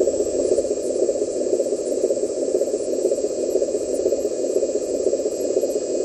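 Electric hydraulic pump of a model dump truck running steadily as the ram raises the tipper bed, a dense, even whirring hum.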